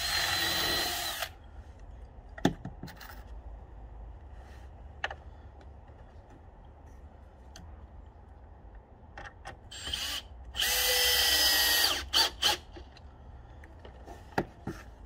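Cordless drill driving screws into pine tile batten: a run of just over a second at the start and another about eleven seconds in, each a steady motor whine, the second followed by two short blips of the trigger. Light knocks and clicks of handling the wood and screws come in between.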